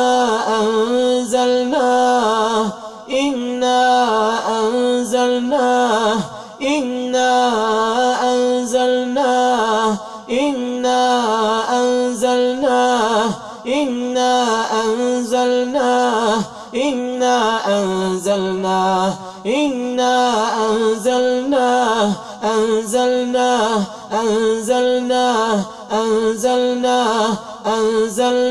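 Chanted Quranic recitation for ruqyah by a single voice, in long melodic held phrases broken by short pauses for breath every few seconds.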